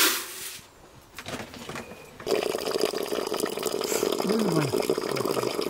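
A short burst of noise right at the start. Then, from about two seconds in, a steady stream of water running out of a black pipe into a plastic bucket.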